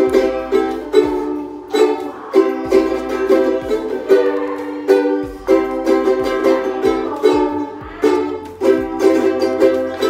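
Ukuleles strumming chords together in a steady rhythm, about two strums a second, in a small room.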